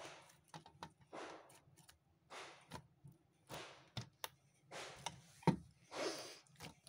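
Glossy pink slime being squeezed and pressed by fingers: soft sticky squelches about once a second, with sharp little clicks as it sticks and pulls away. The loudest click comes about five and a half seconds in.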